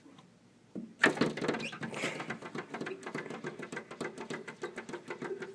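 Cats' paws and claws tapping and scraping rapidly on a glass door pane, several taps a second, starting about a second in.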